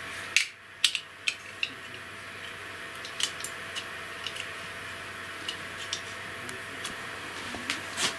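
Small plastic clicks and taps as the parts of a snap-together figure model kit are handled and pressed together, with a few louder clicks in the first second or so and again near the end.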